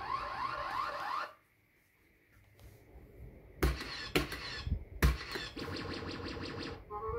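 Maygay Great Escape fruit machine's electronic sound effects: a run of rising bleeps for about a second, a short pause, then three loud clunks from the buttons and reels. A fast run of repeated beeps follows, and a jingle starts near the end.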